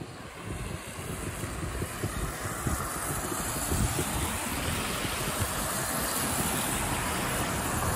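A car passing on a wet road: tyre noise swells over the first few seconds and then holds steady, with wind buffeting the microphone underneath.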